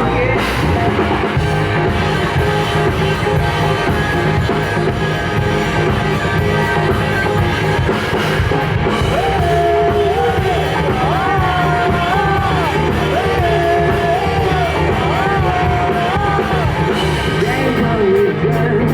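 Live rock band playing, with drums, bass and guitars driving under a singing voice; in the second half the voice holds long notes that bend up and down.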